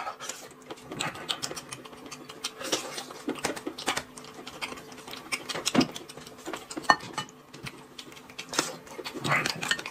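A man chewing and smacking his lips as he eats roasted meat from his hands: an irregular run of quick clicks with no pauses.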